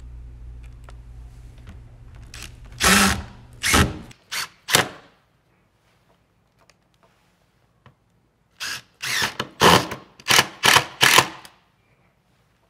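Cordless drill-driver running in short spurts as it drives the screws that fasten a recliner armrest: a few spurts in the first five seconds, then, after a pause, a quick run of short spurts as each screw is snugged down.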